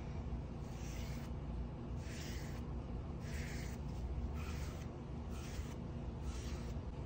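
Foam brush wiping wood stain across wooden blocks: six soft swishing strokes about a second apart, over a steady low hum.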